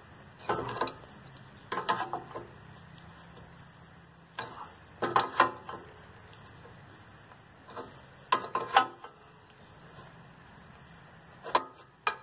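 Hand wrench turning the nut on an outer tie rod end, backing it down toward the end of its threads: about six short clusters of metallic clicks and clinks, a second or two apart, as the wrench is swung and reset on the nut.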